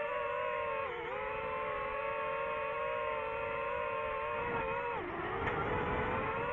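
DJI FPV drone's motors and propellers whining steadily in flight, the pitch dipping briefly about a second in and again near five seconds in as the throttle changes, with a short rush of noise around the second dip.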